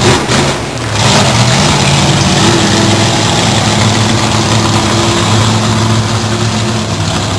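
Monster truck engine running loud and steady as the truck rolls at low speed, picking up about a second in.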